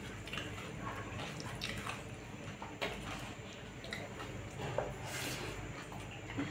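Wet hand-eating sounds: fingers squishing rice and chicken curry together on a steel plate, then chewing with lip smacks, heard as scattered short clicks over a low steady hum.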